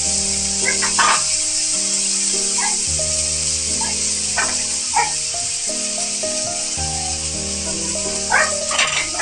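Background music with held chords over the steady sizzle of chicken and onions frying in oil in a wok, with a few short sharp sounds scattered through.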